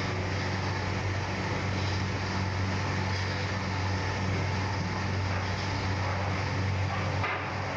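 Jalebi batter frying in a wide wok of hot oil: a steady sizzle over a constant low hum.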